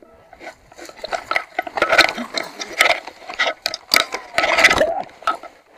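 Downhill mountain bike clattering over rough trail: chain slap, frame and component rattle, and sharp knocks of the wheels hitting roots and rocks. The knocking is densest about two seconds in and again between four and five seconds.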